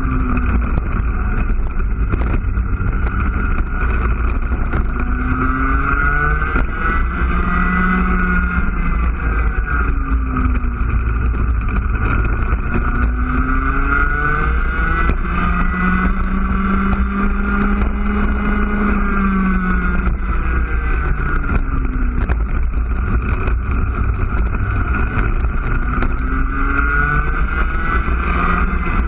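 IAME two-stroke cadet kart engine heard onboard at racing speed, its pitch climbing as the revs build on the straights and dropping back each time the driver lifts for a corner, over and over. The longest climb comes about halfway through, on the longest straight.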